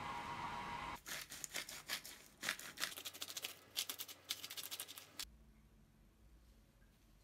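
A hand salt grinder being twisted, its burr crunching coarse salt crystals in a rapid, irregular run of crackling clicks from about a second in until about five seconds in. Before that, a steady hiss stops about a second in.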